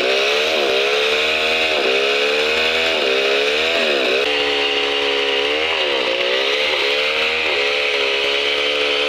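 Two-stroke chainsaw running at high speed, its pitch dipping and recovering every second or two.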